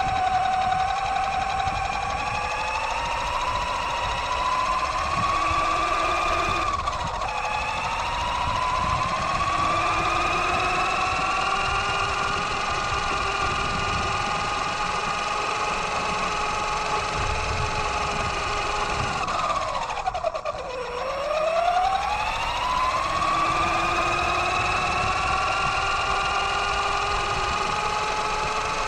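Axial Yeti XL RC truck's electric motor and drivetrain whining as it drives on pavement, the pitch rising and falling with its speed, over a low rumble from the tyres. The whine dips briefly about seven seconds in, then drops steeply about twenty seconds in as the truck slows almost to a stop, and climbs again as it speeds back up.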